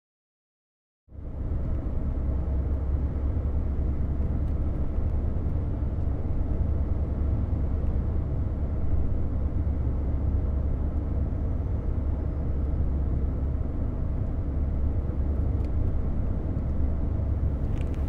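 Steady low rumble of a car on the move, engine and road noise heard from inside the cabin, starting about a second in.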